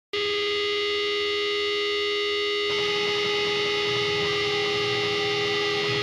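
Electric guitar feedback through an amplifier: one steady held drone with many overtones, thickening with added noise and notes about two and a half seconds in, as the intro of a screamo track.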